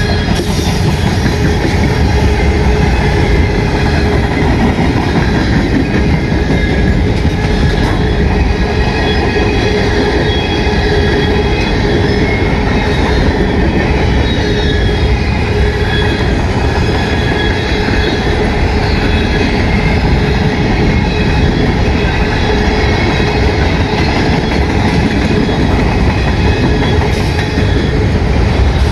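Freight cars (boxcars, covered hoppers and tank cars) rolling steadily past: a loud continuous rumble and clatter of steel wheels on rail, with high, drawn-out wheel squeal throughout.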